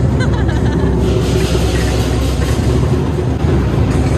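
Lion-dance drum and cymbals playing in a loud, dense, unbroken din, with crowd noise mixed in.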